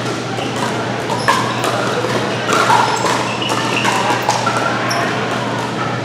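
Pickleball paddles striking the plastic ball and the ball bouncing on the court: irregular, sharp pocks, several a second, over a steady low hum and voices.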